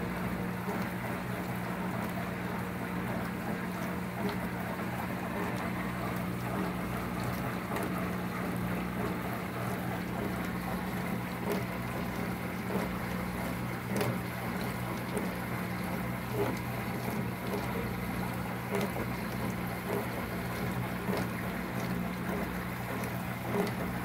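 Portable countertop dishwasher running a strong wash: a steady hum from its small magnetic-drive submersible pump, with water spraying and splashing inside the tub.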